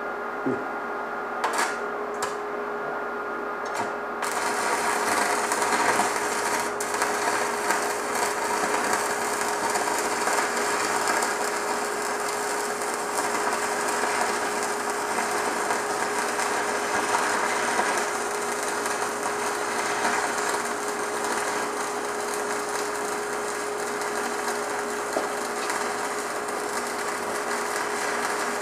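Stick-welding arc from a Tweco Fabricator 141i running 3/32 E6013 rod at 90 amps. A few sharp scratches come as the rod is struck, then about four seconds in a steady crackling hiss sets in as the bead is run, over a steady tone.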